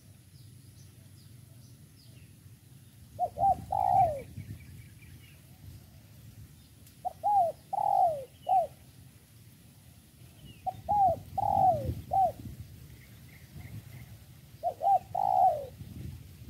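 Spotted dove cooing: four phrases a few seconds apart, each of one or two quick short notes, then a longer coo falling in pitch, sometimes with a short note after.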